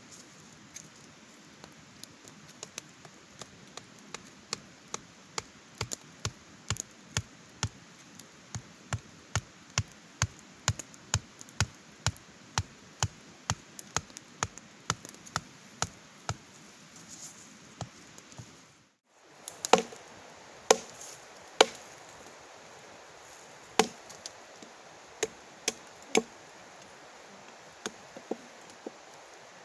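Wood being chopped with a hand blade: quick, even strokes about two to three a second that grow louder, then after a short break, fewer, harder, more widely spaced strikes.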